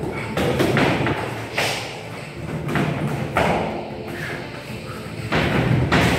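Several dull thuds at irregular spacing from kickboxing sparring: punches, kicks and knees landing on gloves, shin guards and body.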